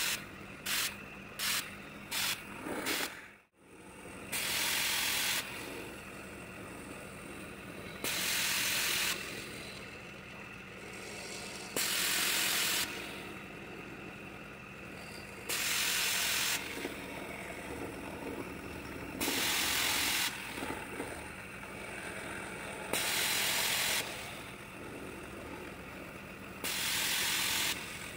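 Homemade epoxy-granite CNC mini mill cutting mild steel with an end mill: a steady machine hum, with a loud cutting noise that swells for about a second on each pass and repeats every three to four seconds. In the first three seconds the bursts come much faster, about two a second, and the sound drops out briefly just before the slower passes begin.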